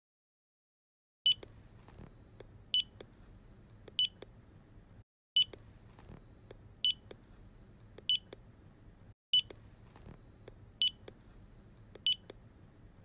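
Fingerprint-scanner sound effect: short, high electronic beeps, nine in all, one about every second and a half. They start about a second in and sit over a faint low hum, with fainter clicks between them.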